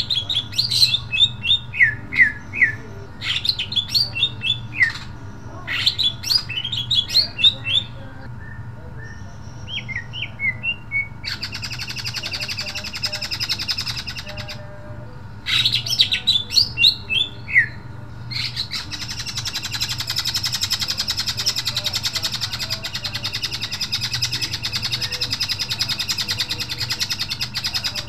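Caged male green leafbird (cucak ijo) singing: bursts of sharp, rapid high notes, then a long, fast rattling trill held from about two-thirds of the way in to the end, with a shorter trill before it.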